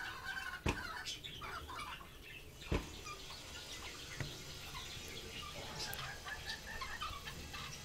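Parrots feeding from a bowl: soft, scattered clucking and chattering calls, with two sharp knocks about a second in and near the middle, and a fainter one a little later.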